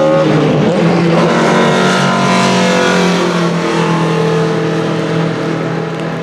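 BMW M3 E30 DTM race car's naturally aspirated four-cylinder engine at speed: rising revs break off just after the start, then the engine holds a steady note that fades away near the end.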